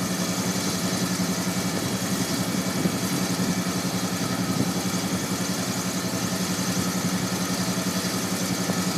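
The 1963 Lincoln Continental's hydraulic convertible-top pump running with a steady hum as the roof rises out of the trunk, working through the newly replaced lines, cylinders and solenoids.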